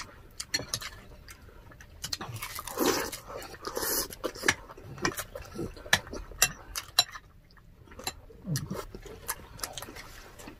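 Close-up eating sounds: lomi noodle soup slurped and chewed, with many short clicks of spoons and forks against ceramic bowls and a couple of longer slurps a few seconds in.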